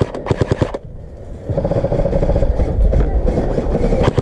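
Airsoft electric rifle firing a rapid full-auto burst of about a dozen shots a second for under a second. After a short lull, a steady mechanical buzzing rattle follows about a second and a half in.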